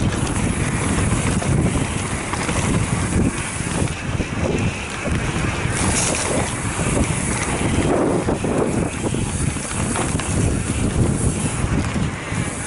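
Wind buffeting the microphone of a camera on a fast-moving mountain bike, over the rumble and clatter of knobby tyres and the bike rattling across a rocky dirt trail, with many small jolts.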